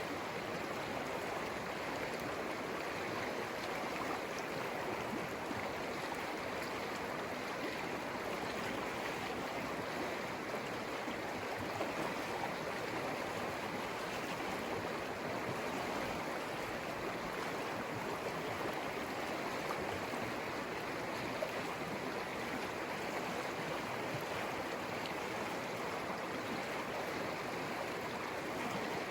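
The Conejos River flowing: a steady, even rush of running water.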